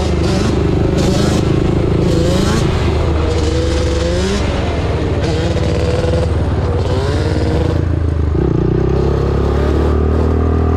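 Yamaha Banshee 350's parallel-twin two-stroke engine, through DMC expansion pipes, running steadily and loudly; its note changes about eight seconds in.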